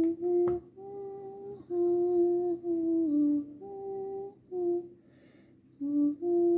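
A voice humming a slow melody, held notes that step up and down in pitch with short breaks between phrases.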